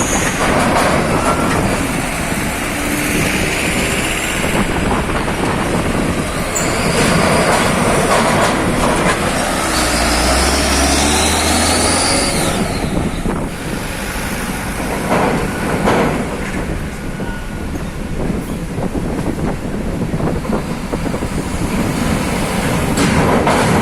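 Heavy diesel trucks running past: steady, dense engine and road noise with a few faint high squeals and a brief knock about two-thirds of the way through.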